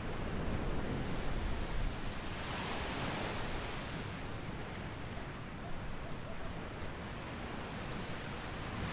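Small waves washing onto a sandy beach: a steady hiss of surf that swells briefly about two and a half seconds in.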